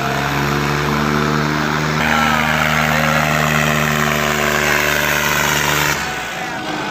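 John Deere tractor's diesel engine running hard under heavy load in a tractor tug-of-war pull, a steady, loud drone with a clear pitch. The drone drops away about six seconds in.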